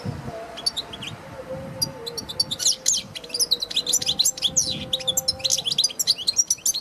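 European goldfinch singing: a fast, jumbled run of high twittering notes and trills. The notes are sparse at first and densest over the last few seconds, then break off just before the end.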